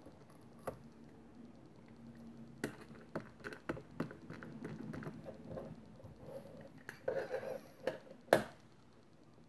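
Handling of a clear acrylic stamping platform and a rubber stamp: scattered plastic taps, clicks and rubbing, with one sharp knock about eight seconds in as the lid comes down.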